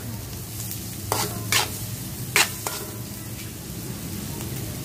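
Sliced onion and large red and green chillies sizzling in a wok while a metal spatula stirs them, the spatula scraping against the pan three times in the first two and a half seconds, then a steady sizzle.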